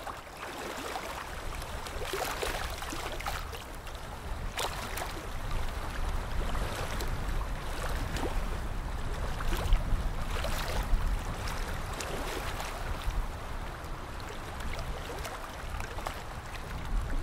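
Water splashing and sloshing over a steady low rumble, as heard from a boat on the water.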